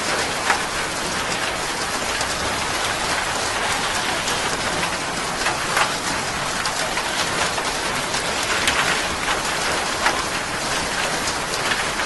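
Canal water rushing and splashing, a steady hiss of turbulent flow.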